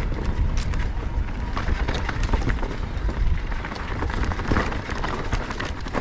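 Mountain bike riding down a dirt trail: heavy wind rumble on the camera microphone, with tyre noise and frequent clicks and rattles from the bike going over the ground.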